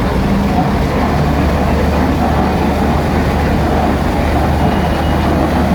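Tractor engine running steadily, a continuous low drone.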